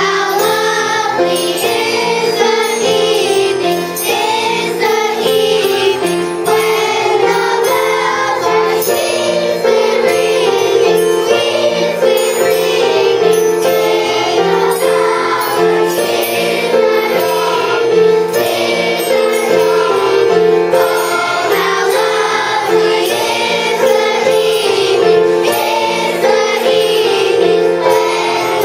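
Elementary school children's choir singing over steadily held accompanying notes.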